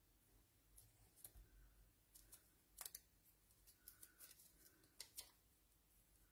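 Faint, scattered small ticks and crinkles of a roll of glue dots being handled and dots peeled off their paper backing, the sharpest clicks about three and five seconds in.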